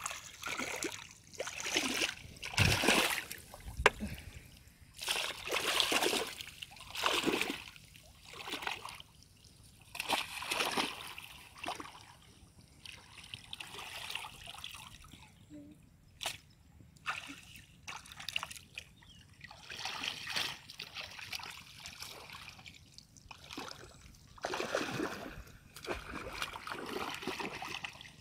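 Shallow water splashing, sloshing and dripping in irregular bursts as a person wades through it and dips and lifts a wicker basket fish trap.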